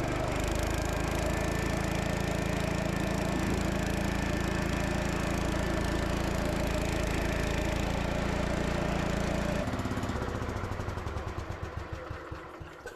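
Gravely Commercial 10 walk-behind tractor's Kohler single-cylinder engine running steadily while driving the snow blower, then shut off about ten seconds in and winding down in slowing pulses to a stop.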